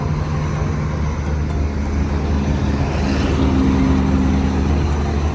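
Road traffic: a steady low motor-vehicle engine hum with road noise, and a second engine note swelling in about two seconds in as another vehicle comes close.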